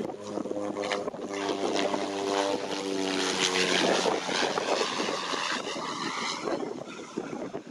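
Cessna 208 Caravan turboprop and propeller humming as the aircraft flies past low on final approach to land. The hum is loudest about three to four seconds in, then gives way to a broad rushing noise that fades as the plane moves on toward the runway.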